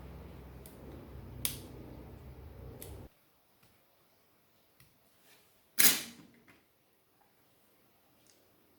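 A few small clicks and taps from unclipping the ribbon-cable connectors on a tablet's circuit board, the loudest about six seconds in. A low steady hum under the first three seconds cuts off suddenly.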